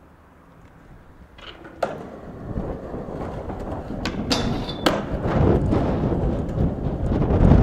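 Skateboard on a concrete ledge: a few sharp knocks of the board and wheels, one with a brief high scrape, then the wheels rolling with a rumble that grows louder toward the end.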